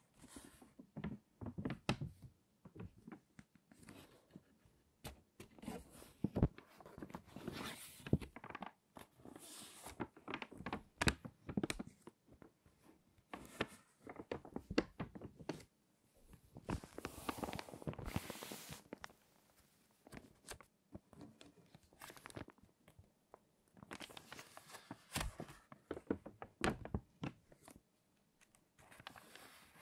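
Crinkly page turning through water-damaged magazines: the stiff, wrinkled paper crackles irregularly, with longer rustling swells as pages are lifted and turned over, and occasional dull thunks as they settle.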